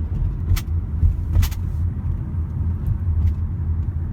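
Car interior rumble: steady low engine and road noise heard from inside the cabin, with two short clicks about half a second and a second and a half in.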